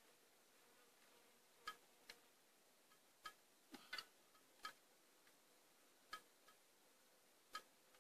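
Faint, light clicks at irregular intervals, about eight of them, over near silence, with a very faint steady hum beneath.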